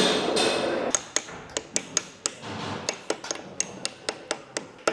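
Quick, light hammer taps on a steel locknut on a pump driveshaft, about three to five a second, tapping the nut's threads straight so it will thread on. The taps begin after a louder burst of noise that dies away about a second in.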